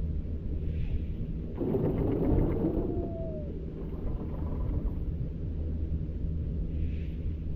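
Wind rumbling over the microphone while snowboarding, with a louder rush of the snowboard scraping across snow about one and a half seconds in, lasting about two seconds.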